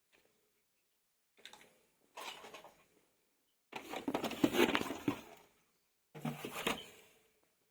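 Handling noises: clattering and rustling as things are moved about, in four short bursts, the third the longest and loudest.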